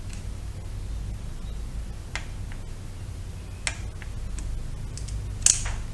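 A handful of sharp metallic clicks from a wrench on the engine balancer's pinch bolt as the bolt is torqued to 88 inch-pounds. The clicks are spaced out, with the loudest, a close pair, near the end, over a steady low hum.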